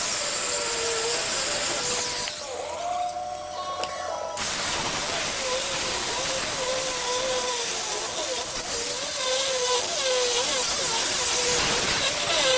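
Cutting torch cutting through the steel of a snowplow mount: a steady hiss with a wavering whine. It breaks off about two seconds in and starts again about four seconds in.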